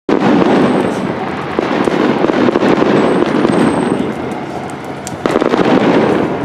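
Dry grass and brush burning, crackling densely with many small pops.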